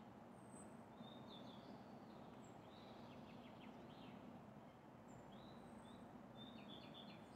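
Faint, high bird chirps and short twittering calls, scattered through, over a steady low hum of distant city noise.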